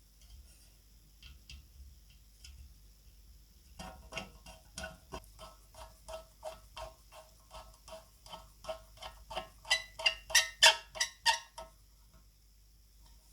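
A regular series of sharp metallic clicks, about three a second, each with a brief ring, starting about four seconds in and stopping shortly before the end; the clicks grow louder near their end.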